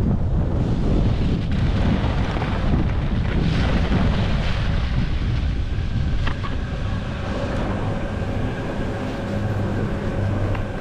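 Wind buffeting the microphone with a heavy rumble. About six seconds in it eases and a steady mechanical hum comes up, with a sharp click just before the hum.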